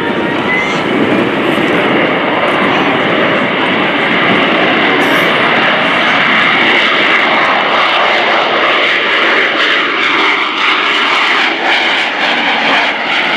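AV-8B Harrier II's Rolls-Royce Pegasus turbofan running loud and steady: a dense jet rush with a faint high whine on top.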